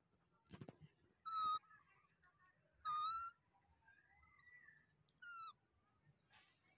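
Baby macaque calling from high in a papaya tree: three short, high coos about a second and a half apart, with a softer rising call between the second and third.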